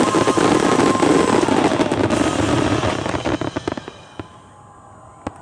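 Fireworks crackling in a dense rapid barrage that thins out and dies away about four seconds in, followed by a couple of single pops near the end.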